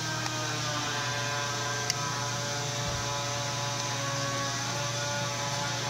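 Steady low electrical hum with faint steady overtones, and one sharp click about two seconds in.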